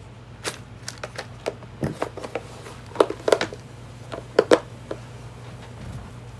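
Beading pliers working at large metal staples in an old book's spine: a string of irregular small clicks and ticks, louder a few times near the middle, over a faint steady low hum.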